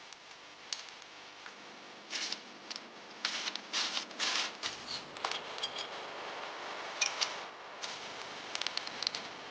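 Hands working bamboo: sharp clicks and knocks, with short bursts of scraping and rustling, loudest a few seconds in.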